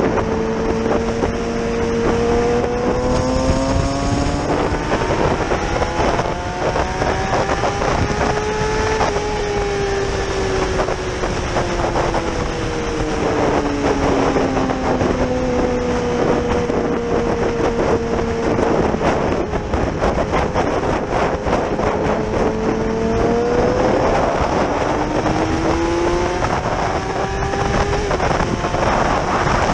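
Yamaha R6 inline-four sport bike engine heard from on board while riding: the engine note climbs steadily for about nine seconds as the bike accelerates, falls away over the next ten as it slows, and climbs again near the end. Wind rushes over the microphone throughout.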